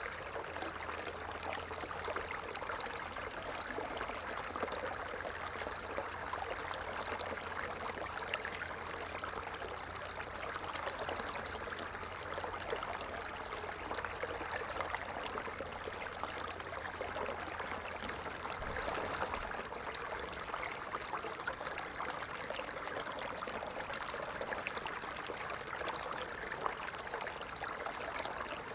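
Steady running and trickling of a stream's flowing water. A faint low rumble underneath stops about two-thirds of the way through.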